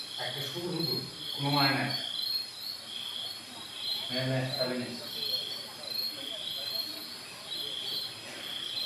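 Cricket chirping in a steady rhythm, about one chirp a second, with a few short, indistinct stretches of men's voices, about a second in and again near the middle.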